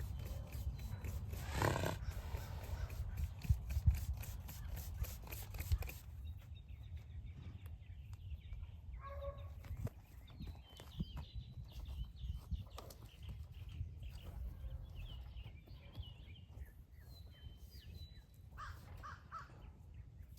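Bird calls outdoors: one loud harsh call about two seconds in, over low rumble and rapid clicking, then faint short high chirps for the rest.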